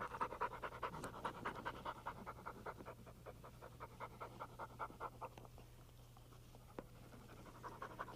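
Springer spaniel panting, fast even breaths that fade away about six seconds in and pick up faintly again near the end, over a steady low hum.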